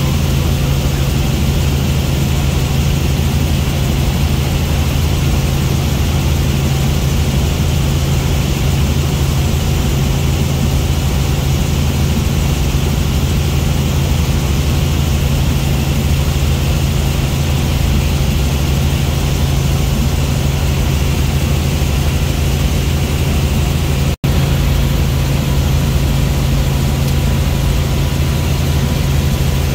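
Helicopter engine and rotor running steadily, heard from inside the cabin as a constant low drone with hiss over it. The sound cuts out for a split second once, near the end.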